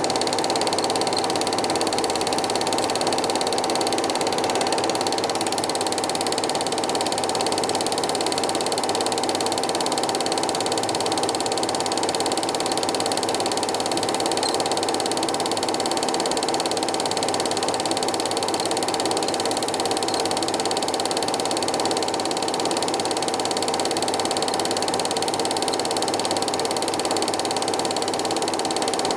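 Cine film projector running: a steady mechanical whir and fast clatter of the film advance, with a constant whine, unchanging throughout.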